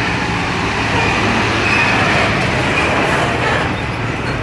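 UD Quester container truck's diesel engine running with a steady low note as it pulls slowly past, amid road traffic noise.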